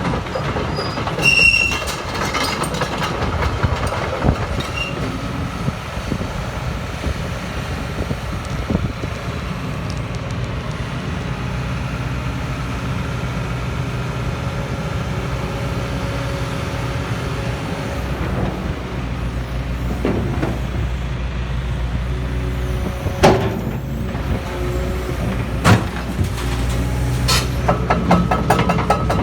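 Case CX250C excavator's diesel engine running steadily, with a few sharp knocks and clanks over it, the loudest two in the second half.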